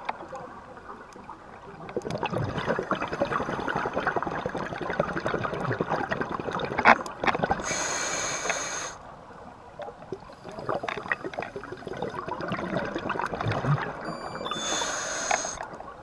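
A scuba diver breathing through a regulator, recorded underwater. There are two long exhalations of gurgling, crackling bubbles, each followed by about a second of hissing inhalation through the regulator.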